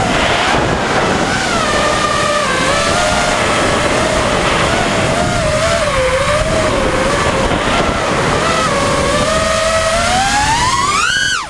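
FPV racing quadcopter's brushless motors and propellers whining in flight, the pitch wavering with throttle and then climbing steeply near the end as the throttle is punched, over wind noise.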